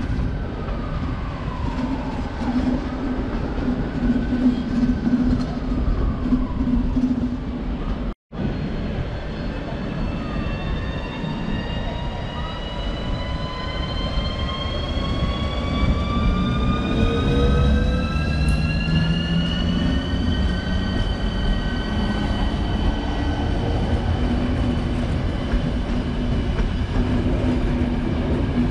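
Train running in the station, with a steady low hum and a whine of several tones. After a short break about eight seconds in, the whine climbs in pitch for several seconds, then holds steady.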